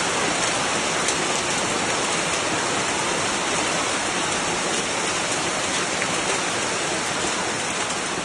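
Heavy rain pouring steadily on hard surfaces: a dense, even hiss with a few faint sharp ticks.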